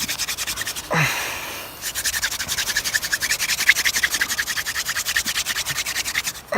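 Hand-drill fire spindle being spun between the palms into a wooden fireboard, a rapid, even scratchy rubbing with a short break about a second in.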